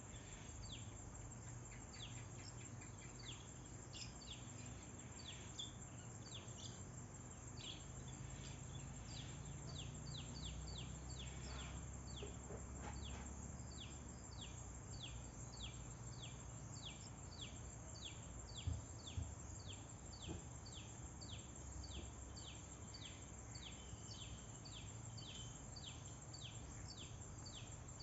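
A bird chirping over and over: short, high, falling notes at about two a second, over a steady low rumble. There are two brief knocks a little past halfway.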